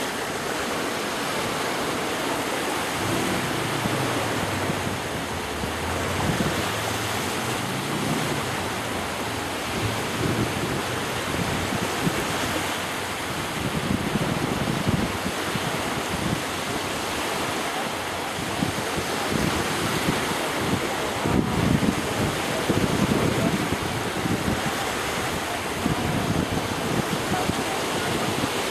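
Small waves washing in and running back over a sandy beach, with wind buffeting the microphone in irregular gusts, strongest about twenty seconds in.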